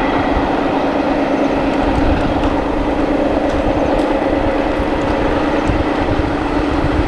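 Alstom diesel-electric locomotive's Pielstick diesel engine running under power as the train pulls away, a steady drone over a low rumble.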